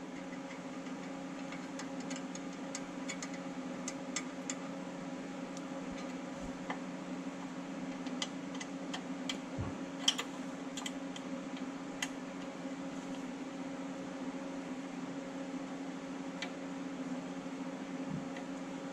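Ratchet wrench clicking in short irregular runs as the bolts of a steel front differential skid plate are worked, with one sharper click about ten seconds in. A steady low hum runs underneath.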